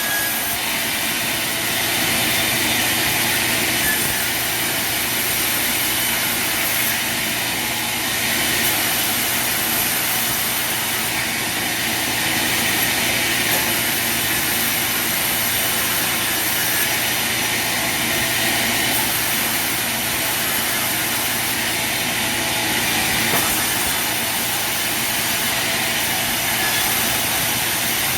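Sawmill machinery running steadily with a continuous mechanical whir and hiss.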